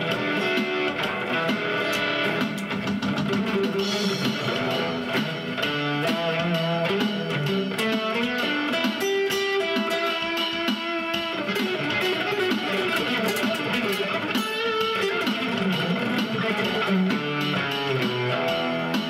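Acoustic guitar played through a Zoom G1 Four effects pedal into a Roland Cube-10 amp on its JC Clean setting with a little reverb. Single notes picked in a continuous melodic line over lower bass notes, with no pause.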